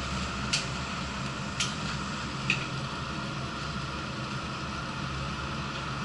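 Steady hum inside a commuter train car standing at a platform with its doors open, from the car's air conditioning and electrical equipment. Three sharp clicks come in the first two and a half seconds, about a second apart.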